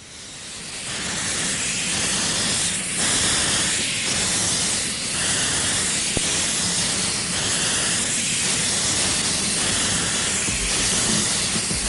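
Welshpool and Llanfair Light Railway steam locomotive No. 1, The Earl, blowing off steam low down by its wheels: a loud, steady hiss that swells up over the first second or so.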